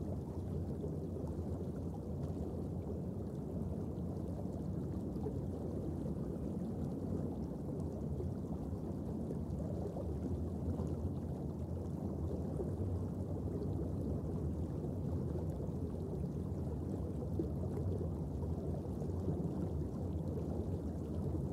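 Underwater reef ambience picked up through a camera housing: a steady low rushing of water with faint crackling.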